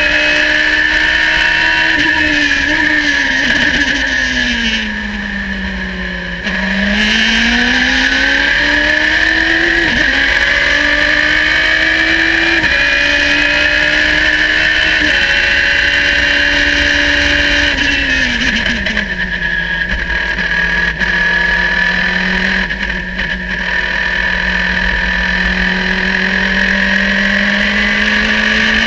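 Radical sports-racing car's engine heard onboard at racing speed. The revs fall off, then climb hard from about six seconds in, with sudden steps at gear changes around ten and thirteen seconds. They drop again at about eighteen seconds and build slowly near the end.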